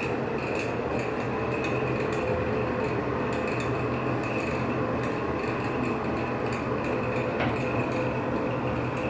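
Older NuTone exhaust fan running with a steady high-pitched squeak over the low hum of its motor; the fan is dirty and squeaky.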